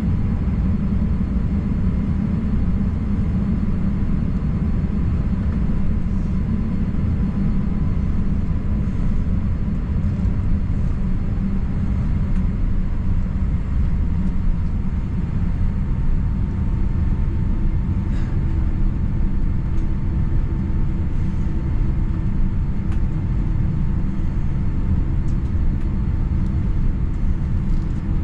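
Cabin noise of a Boeing 787-9 taxiing: a steady low rumble with a faint high whine, which drops a little in pitch about halfway through as a second, lower hum comes in.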